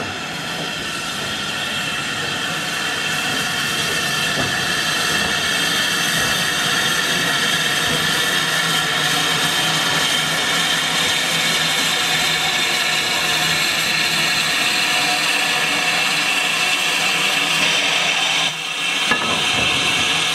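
Steam locomotive 30120, an LSWR T9 4-4-0, hissing steam as it draws slowly alongside the platform: a loud, steady hiss that swells over the first few seconds, with a brief dip near the end.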